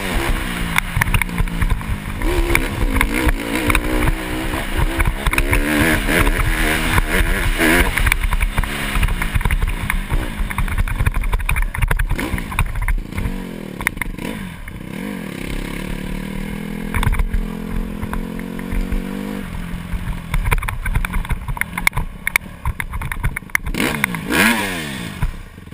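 Dirt bike engine being ridden: revving up and down repeatedly over rough ground for the first dozen seconds, then running more evenly for a few seconds, with one more short rev near the end before it drops away as the bike pulls up.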